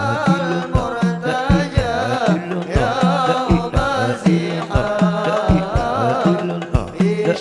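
Islamic devotional song (sholawat) sung in an ornamented, wavering voice over a steady pattern of drum strikes.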